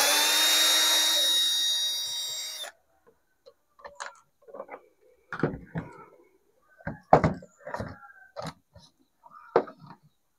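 Cordless drill-driver with a small screwdriver bit running steadily for about two and a half seconds as it backs out a rusted screw in a hand mixer's plastic housing, then stopping. Scattered clicks and knocks of the plastic casing being handled and pulled apart follow.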